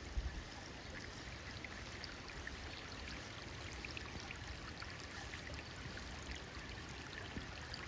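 Rainwater runoff running and trickling steadily after heavy rain, with water still draining from an overflowed garden pond. There is a brief low bump just after the start.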